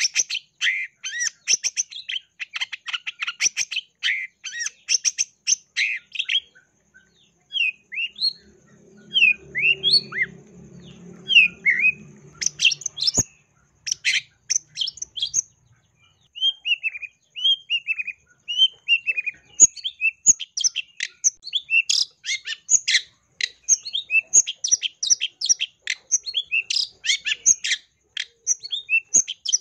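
Long-tailed shrike singing vigorously: dense runs of rapid chattering notes, broken in the middle by a string of separate short slurred whistles, then fast chatter again.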